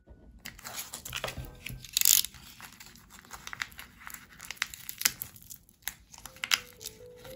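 Foil-laminated packaging crinkling and tearing as it is slit and torn open with a utility knife, in irregular crackling rustles with sharp clicks and one loud tear about two seconds in.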